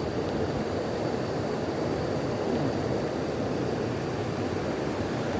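Steady rushing of flowing stream water, with no distinct events standing out.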